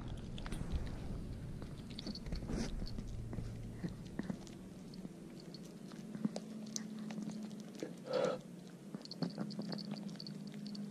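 A pet chewing and biting on a raw chicken foot, with scattered small crunching clicks as it works at the toes.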